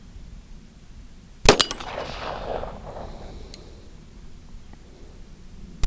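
Two pistol shots from a Springfield Armory TRP 1911 firing .45 ACP handloads, about four seconds apart, the first about a second and a half in and the second at the very end; each is followed by a short echo.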